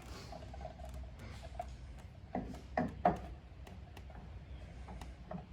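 Light clicks and knocks of a spin-on fuel/water separator filter being handled and threaded onto its housing by hand, with a few sharper knocks about two and a half to three seconds in.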